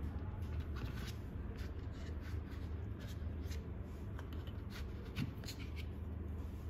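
Watchmaker's hand tools being handled in a plastic carry case with foam inserts: scattered light clicks and taps as pliers are set into their slot and tools are picked out, with a slightly louder knock about five seconds in.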